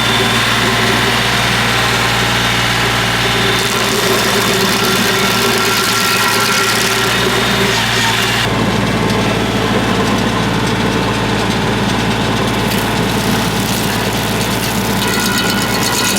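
A compact diesel tractor's engine runs steadily, driving a PTO stump grinder. The tone changes abruptly about three and a half seconds in, again about eight and a half seconds in, and once more near the end.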